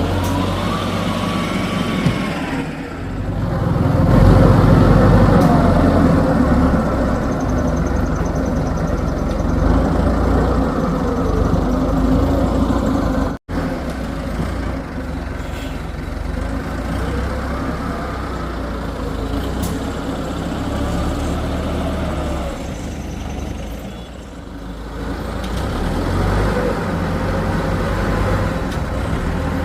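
Heavy diesel engine of an excavator working, its pitch rising and falling as the load changes. The sound drops out for an instant about halfway through.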